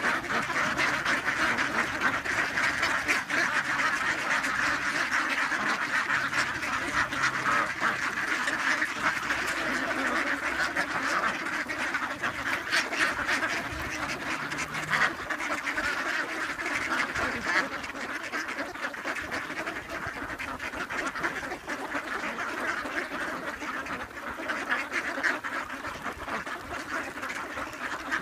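A large flock of mallards and white domestic ducks quacking all at once in a dense, unbroken chorus as they crowd in to be fed; a little louder in the first half.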